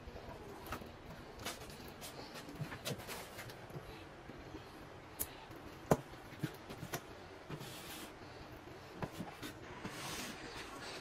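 Putty knife scraping drywall joint compound out of a bucket and spreading it along a drywall seam: faint, irregular scrapes and light taps, with one sharper click about six seconds in.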